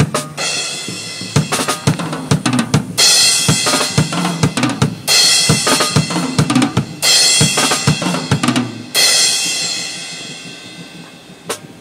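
Drum kit played live: a run of kick and snare strikes under loud, ringing cymbals. The cymbals die away over the last few seconds.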